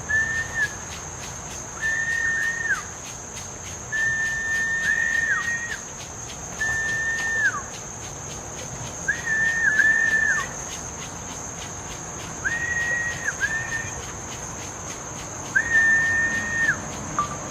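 A steady high insect trill, like crickets, with a whistled note repeated about every two seconds, each held level for about a second and then falling off sharply at the end.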